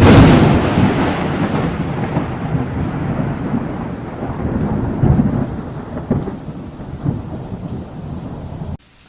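A thunderclap that breaks sharply at the start and rolls on as a long, uneven rumble, then cuts off abruptly near the end.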